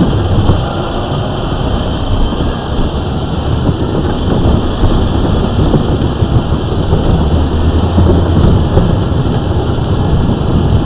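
Power Wheels ride-on toy car driving over pavement: steady, loud noise from its hard plastic wheels and electric drive, picked up right on the car by a camera mounted on it.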